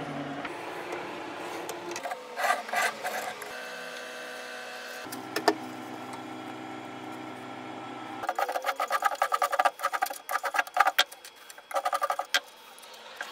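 Wood being sanded by hand with a small sanding block pushed back and forth along a wooden strip, in quick repeated rubbing strokes from about eight seconds in. Before that come quieter handling noises as thin wood veneer sheets are moved about.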